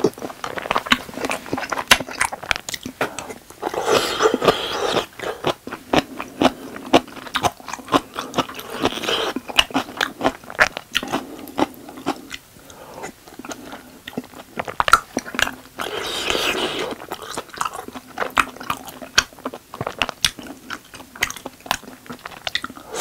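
Close-miked chewing of soft, chewy tteokbokki rice cakes in spicy sauce: a steady stream of wet mouth clicks and smacks, with denser, louder spells about four seconds in and again around sixteen seconds.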